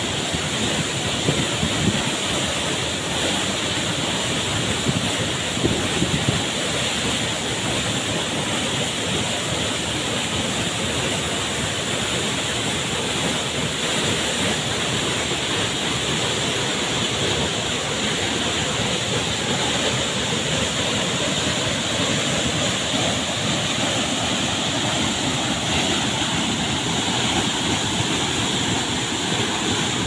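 Waterfall plunging onto rock and into a pool just below it: a steady, loud, unbroken rush of falling water.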